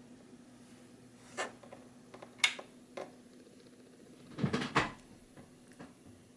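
1968 Royal Apollo electric typewriter with its motor humming steadily and quietly, and a few separate mechanical clacks from the machine, the sharpest about two and a half seconds in, then a quick rattle of several clacks about four and a half seconds in.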